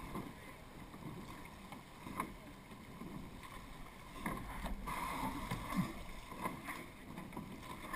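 Surf boat being rowed: water washing past the hull and oar blades pulling through the water, faint, with a light knock about every two seconds as the strokes come round.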